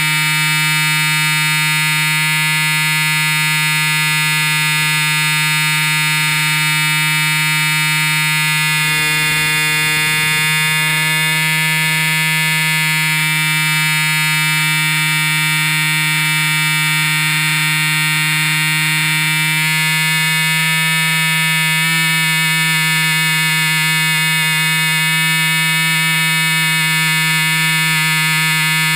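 Loud, unpleasant steady buzzing from a GoPro Hero 2 camera mounted on a Cessna 182 in flight, the camera resonating against something on its mount. It holds one droning pitch with many overtones and barely changes.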